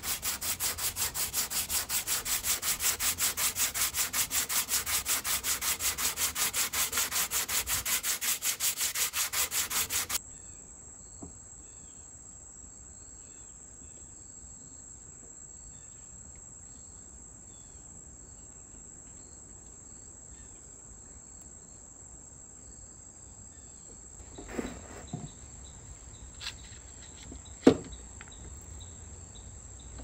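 Hand sanding of a veneered wooden bed footboard with a sanding sponge: quick, even back-and-forth rubbing strokes, about five a second, that stop abruptly about ten seconds in. After that a faint, steady, high-pitched chirring tone remains, and near the end come a few knocks, one of them sharp and loud, as a plastic bar clamp is fitted to the board's edge.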